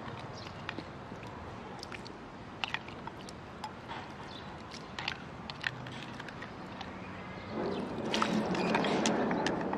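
A plastic spoon clicking and scraping against a small glass bowl as chopped shallot and garlic are scooped out, in scattered irregular clicks. About seven and a half seconds in comes a louder rustling swell, lasting about two seconds, as the rest of the bowl is tipped onto the cut vegetables in a plastic basin.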